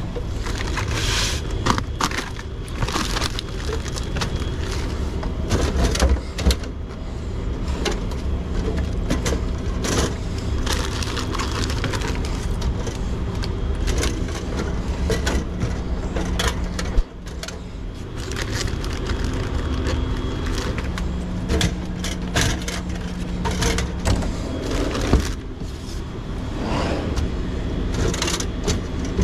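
Plastic water and soda bottles being knocked and set onto the wire shelves of a drink cooler, many irregular clunks and clicks, with plastic shrink-wrap crinkling, over a steady low hum.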